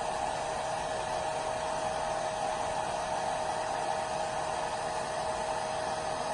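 Hair dryer running steadily: a constant rush of air with a steady whine, unbroken throughout.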